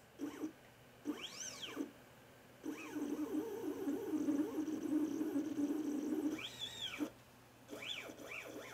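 Stepper motor turning a lead screw to slide a lens platform along a steel rail: it whines up in pitch as each move speeds up and back down as it slows. There are several short moves, and one longer run of about four seconds with a steady buzz while the platform travels.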